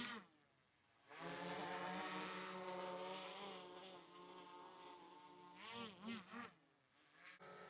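DJI Air 3S quadcopter's open propellers buzzing in flight, a steady low hum. Around the sixth second the pitch wavers up and down as the motors change speed, and the hum briefly dies away twice.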